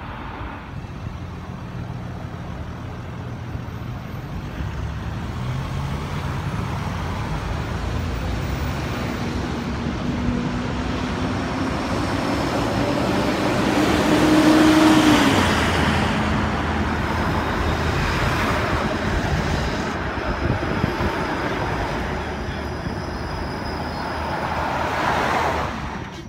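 A Bombardier Flexity Outlook streetcar approaches along the tracks and pulls in close past the stop, over steady passing road traffic. A pitched tone rises and then drops just after the middle, where the sound is loudest.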